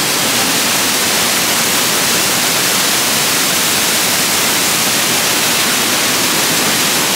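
Rushing water: a steady, loud hiss with no breaks.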